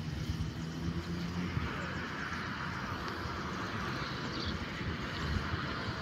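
A motor vehicle running steadily out of sight, its low hum clearest in the first second or so, over a steady outdoor background haze.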